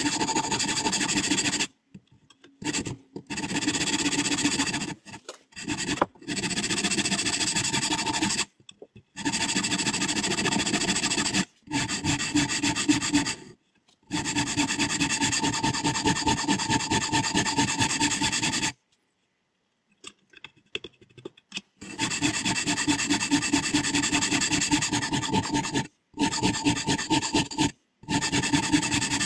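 Diamond sharpening stone in a guided sharpening system, stroked rapidly back and forth along a scissor blade's edge, a steady rasping scrape of stone on steel. It comes in runs of a few seconds, broken by abrupt silent gaps.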